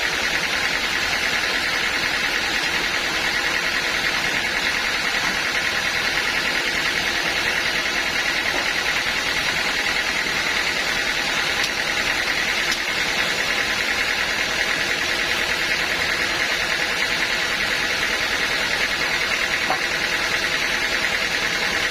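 Sawmill saw machinery running steadily: a loud, even mechanical noise with a steady high whine that does not change.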